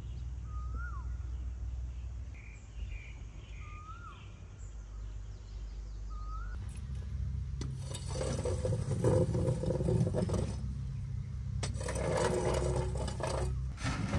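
A bird gives a short rising-then-falling call about every three seconds, with fainter chirps, over a low steady rumble. From about seven seconds in, a metal garden rake scrapes through burnt straw ash in a concrete-block pit, with louder bursts of scraping.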